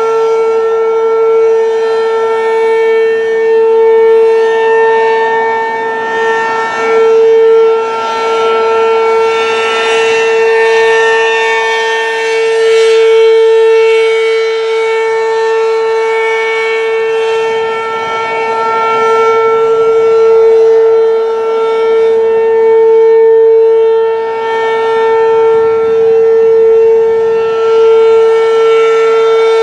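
Werden P-127 outdoor warning siren sounding a steady, unbroken tone during a siren test, loud throughout, its level swelling and fading every few seconds.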